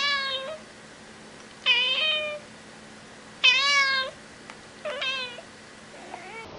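Domestic cat meowing loudly four times, about a second and a half apart, each meow about half a second long, the last one softer.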